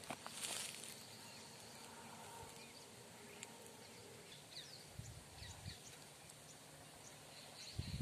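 Faint, scattered chirps of small birds over quiet outdoor background. A brief rustle comes about half a second in, and soft low thumps of footsteps come around five seconds in and again near the end.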